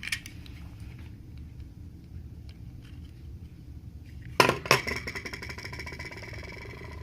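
Two sharp metallic clinks about a quarter second apart, a little past the middle, as a small hand tool strikes or is set down against a hard surface. A ringing tone follows and fades over about two and a half seconds. Faint small ticks of tool work come before them.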